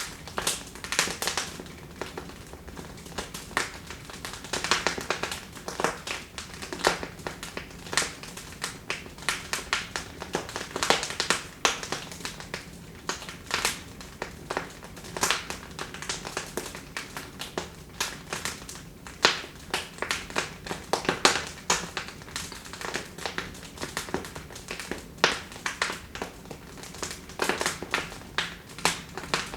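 Wood fire in a fireplace crackling and popping: many irregular sharp snaps, several a second, over a soft steady hiss of burning.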